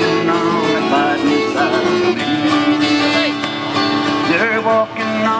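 Acoustic string music in a country or bluegrass style: a guitar under a sliding, wavering melody line that sounds like a fiddle.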